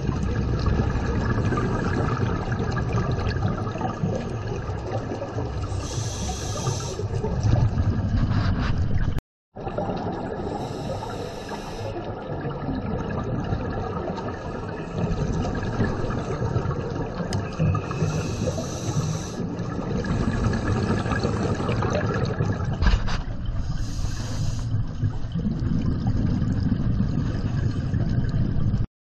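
Scuba breathing heard underwater: a steady rumble of regulator exhaust bubbles, broken about every five seconds by a short high hiss as a breath is drawn through the regulator. The sound cuts out completely for a moment about nine seconds in.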